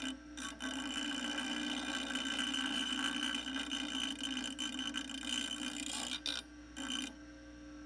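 Electric grinder with a cut-off wheel running and cutting through hardened steel square key stock: a steady motor whine over grinding noise. It breaks off briefly just after the start and twice near the end, then stops about seven seconds in.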